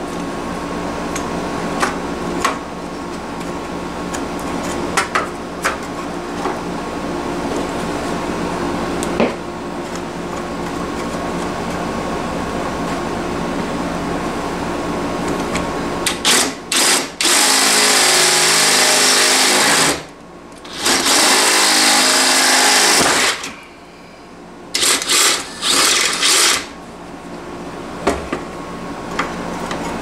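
Cordless drill boring a drain hole up through the sheet-metal base pan of a window air conditioner, enlarging a pilot hole with a larger bit. About halfway through it runs hard for a few seconds, stops briefly, runs again, then gives several short blips. Before that a steady mechanical hum runs underneath.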